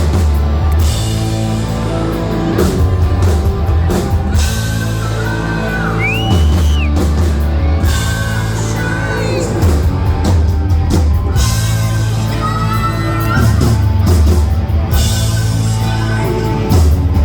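Hard rock band playing live, loud and continuous, with pounding drums, heavy bass and guitars and a lead voice singing over them.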